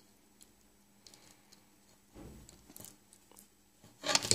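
Faint clicks and light handling noise as fingers work thin wires and a small flight-controller board on a carbon-fibre drone frame. A short low thump comes a little after two seconds, and a louder, brief rustle of handling about four seconds in.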